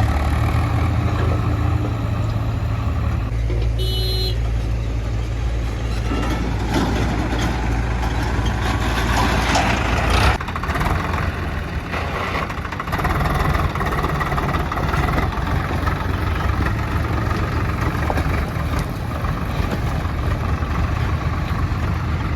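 Heavy diesel engines of a JCB backhoe loader and tractor running steadily, with a short beep about four seconds in and a louder rush of noise around nine to ten seconds in.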